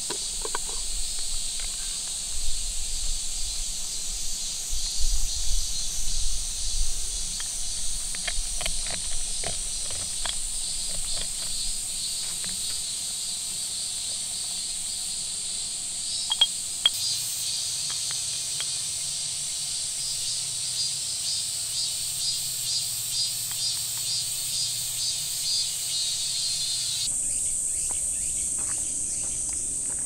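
Steady high insect chorus of forest crickets or cicadas trilling, with scattered light clicks and knocks in the first half. The insect sound changes abruptly near the end.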